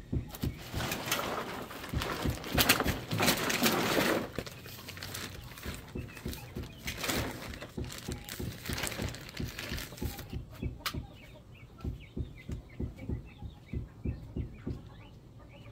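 Backyard birds calling in short, repeated notes, plainest after about ten seconds. Two loud spells of rustling noise cover the first ten seconds, with soft low thumps all through.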